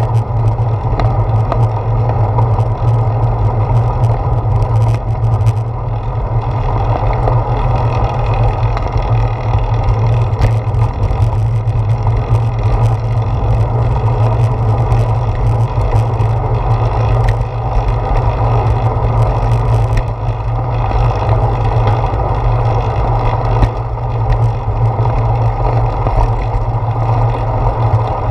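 Steady low rumble of wind and road vibration picked up by a handlebar-mounted GoPro Hero 4 on a bicycle riding a paved trail, with a few faint clicks and rattles.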